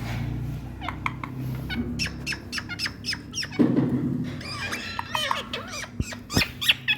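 Indian ringneck parakeets giving a rapid series of short, sharp calls, with a few longer wavering calls near the end, over a low steady hum.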